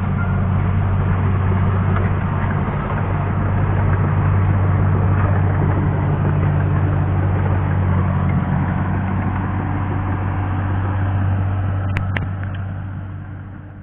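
Caterpillar bulldozer's diesel engine running steadily, with a couple of sharp clicks about twelve seconds in, then fading out near the end.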